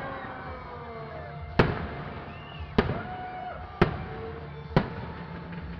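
Aerial fireworks bursting: four sharp bangs about a second apart, each trailing off briefly.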